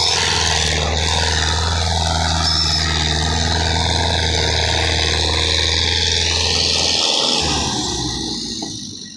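Belarus tractor's diesel engine running hard and steady under heavy load as it pulls a sugarcane-laden trolley, its exhaust belching black smoke. The engine sound drops away over the last two seconds.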